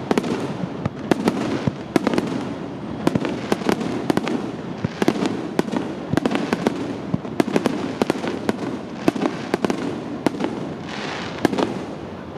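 Fireworks display: a dense barrage of aerial shell bursts, many sharp bangs a second over a continuous low rumble.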